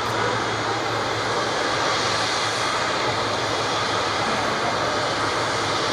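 Steady rushing jet engine noise from an Emirates Boeing 777-300 airliner, holding an even level throughout.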